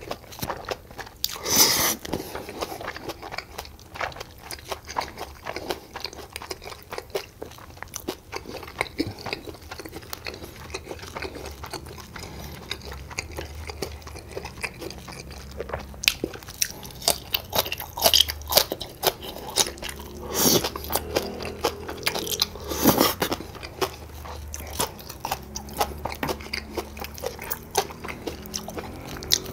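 A person chewing and crunching food close to the microphone, with many small crackly chewing sounds and a few louder crunchy bites in the second half.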